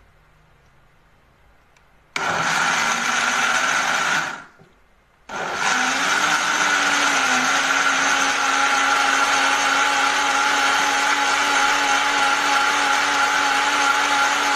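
Rapido RB-300M 300 W bottle blender motor running under load while it blends black beans, banana, lettuce and apple with water. It starts about two seconds in, runs for about two seconds, dies away for about a second, then starts again and runs steadily to the end.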